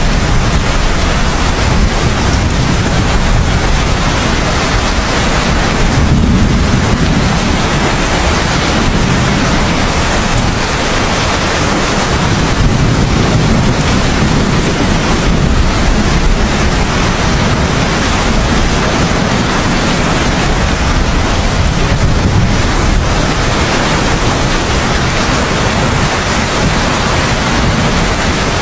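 Heavy rain falling steadily as a dense, even hiss, with a low rumble underneath that swells a little a few times.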